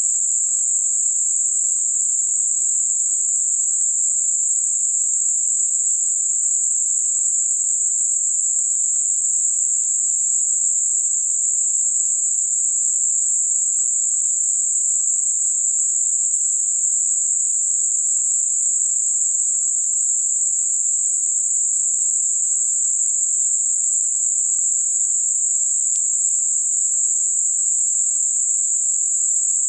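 Gaussian narrowband noise centred at 7.5 kHz, a steady, unchanging high-pitched hiss with a soft bell-curve roll-off on either side, generated as a masking sound for high-frequency tinnitus.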